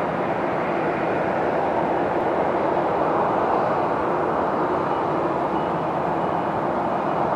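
Boeing 737-800's CFM56-7B turbofan engines at takeoff thrust, a steady, even rushing noise with no clear whine.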